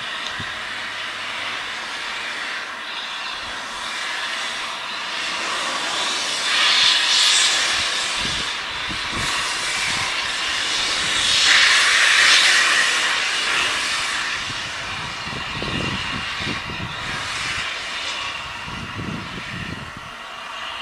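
Steam locomotive 60103 Flying Scotsman, a three-cylinder LNER A3 Pacific, working along the line with a loud, steady hiss of steam that swells twice, about seven and twelve seconds in. A few low thuds follow near the end.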